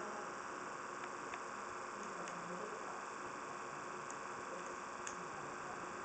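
A few light clicks and taps from the metal parts of a scale-model drill press being handled, over a faint steady hum and hiss.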